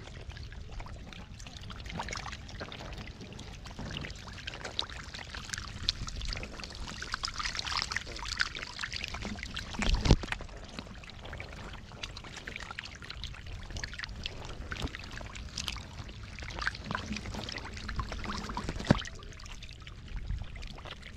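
Shallow water splashing, sloshing and trickling in irregular small splashes, with two louder splashes, one about halfway through and one near the end.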